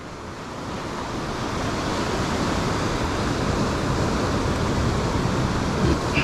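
Ocean surf breaking on a beach, a wash of noise that swells over the first couple of seconds and then holds steady.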